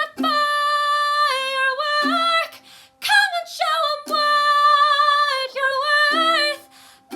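A female solo voice singing a pop song cover in long held notes, in three phrases with short breaths between them, over a quiet steady low accompanying note.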